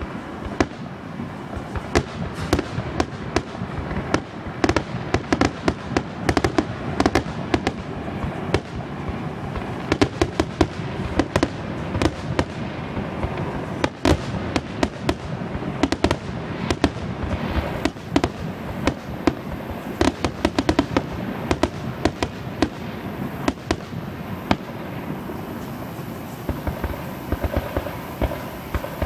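Fireworks display going off: a rapid, unbroken string of sharp bangs and pops.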